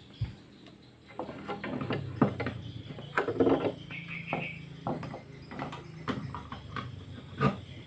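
Scattered clicks, knocks and light clattering of things being handled off-camera while the amplifier's power lead is plugged in, over a low steady hum.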